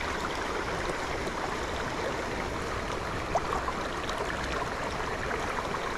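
Steady rush of river water flowing in the current, with one short tick about three and a half seconds in.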